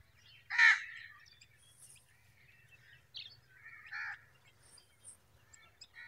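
Birds calling: one loud harsh call about half a second in, a softer one around four seconds, and faint short chirps between.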